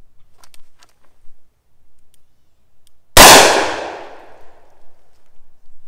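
A single shot from a Smith & Wesson Combat Magnum (Model 19) .357 Magnum revolver with a 2½-inch barrel, fired double action. A sharp report about three seconds in, with a ringing tail that fades over about two seconds.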